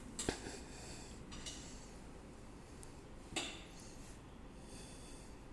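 Quiet room tone with a faint steady hiss, broken by a small sharp click just after the start and a brief soft noise about three and a half seconds in.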